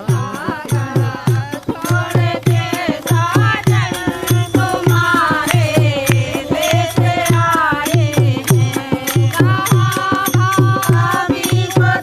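Background music: a song with a sung melody over a steady drum beat and rattling percussion.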